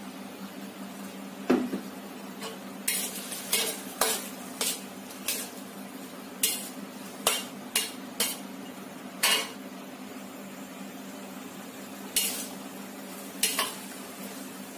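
A metal spatula stirring vegetables in a metal wok, knocking and scraping against the pan in irregular clinks about once a second, with a heavier knock about one and a half seconds in. A steady low hum runs underneath.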